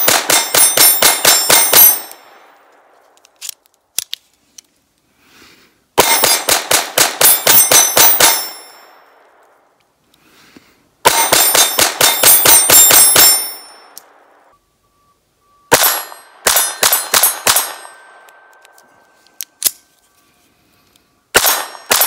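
Ruger LCP II .22 LR pocket pistol fired in five quick strings of rapid shots, about eight to ten shots per string, with hits ringing on steel targets.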